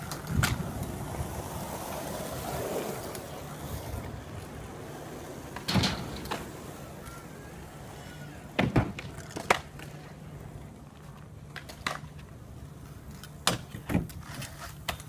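Stunt scooter wheels rolling over skatepark asphalt, with a rumble that eases after the first few seconds, and about eight sharp clacks of scooter decks and wheels striking the ground.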